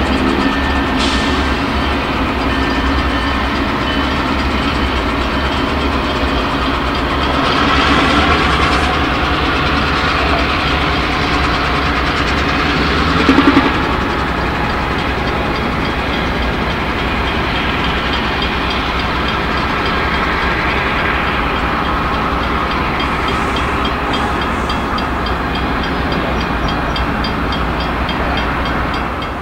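Steady throb of an EMD GP38-2 diesel switcher locomotive's engine running, with one brief louder burst about thirteen seconds in.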